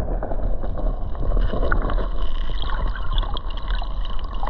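Muffled water noise heard through an underwater camera: a steady low rumble with gurgling and many small clicks.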